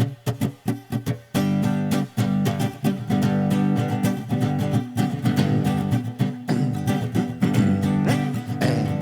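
Acoustic guitar introduction to a song: short, choppy strokes for the first second or so, then steady full strumming of chords from about a second and a half in.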